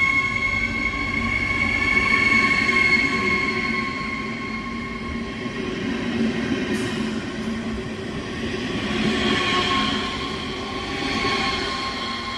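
Siemens Desiro HC electric multiple unit (RRX class 462) pulling out of the station as its cars roll past, with a steady high electric whine over rumbling wheel noise.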